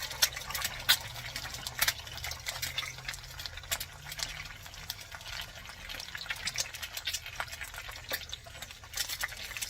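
An egg frying in hot oil in a pan, sizzling with many small irregular pops and crackles.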